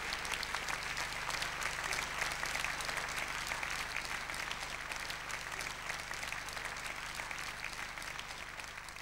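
Audience applauding, a dense patter of many hands clapping that gradually fades out over the last few seconds.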